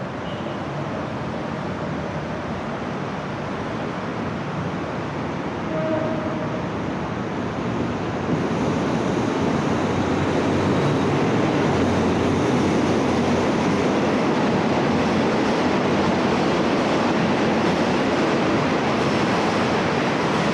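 Steady rumbling vehicle noise, growing louder about eight seconds in and then holding.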